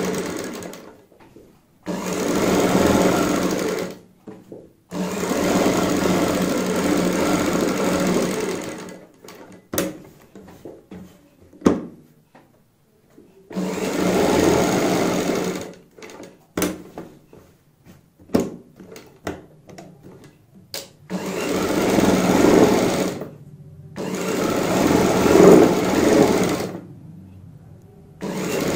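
Sewing machine stitching a neck facing onto cotton dress fabric, running in stop-start stretches of two to four seconds. In the pauses, scattered short clicks and knocks.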